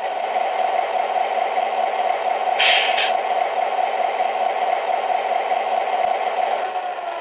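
Lionel 1997 Centennial Series GP9 model diesel's electronic engine sound running steadily while the locomotive stands, with two short hisses about two and a half seconds in and a sharp click near six seconds. The engine sound drops in pitch near the end.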